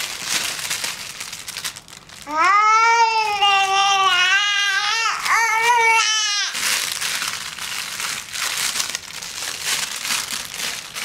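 Crinkle-toy baby newspaper crackling as it is grabbed and shaken. About two seconds in, a young child's high voice cuts in, held for about four seconds with a brief break, the loudest sound, and then the crinkling carries on.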